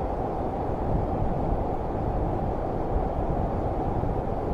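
Steady roar of a tall waterfall in full monsoon flow: a dense, unbroken rushing noise weighted to the low end.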